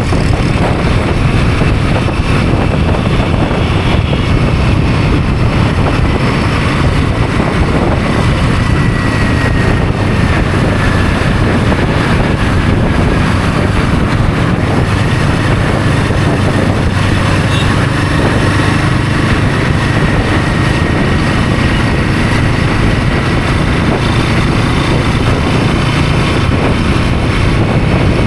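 Royal Enfield Himalayan 450's single-cylinder engine running steadily while riding, mixed with rushing road and wind noise.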